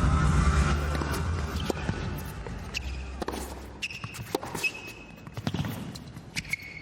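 Background music fading out over the first few seconds, then a tennis rally: sharp ball bounces and racket strikes on an indoor court, with several short, high squeaks.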